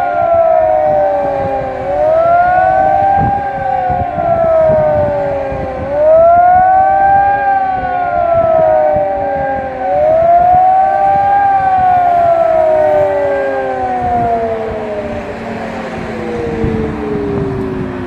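Electronic high-power civil defence siren sounding the rising and falling warning tone, one wail about every four seconds, with a second siren further off rising and falling out of step with it. Near the end the tone stops cycling and slides down in one long falling glide as the signal winds down. Wind buffets the microphone throughout.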